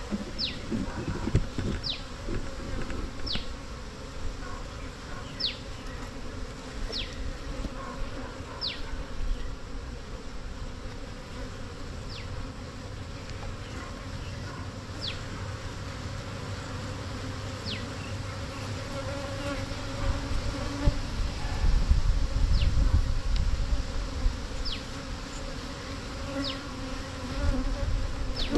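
A mass of honeybees buzzing around an exposed wild comb as it is handled, a steady hum. Short high chirps that fall in pitch repeat about every one and a half seconds, with some low rumbling about two-thirds of the way through.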